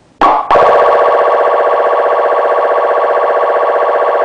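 Sho-Me 30.2108 dash-mount siren amplifier sounding its electronic phaser (hyper-yelp) siren tone. A short blip, then a continuous, very fast electronic warble.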